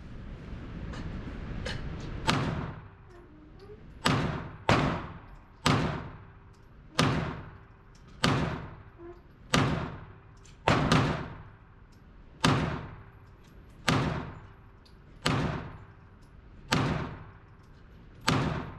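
Handgun shots echoing in an indoor shooting range, fired one at a time in a steady string of about a dozen, roughly one every second or so. Each crack has a reverberating tail.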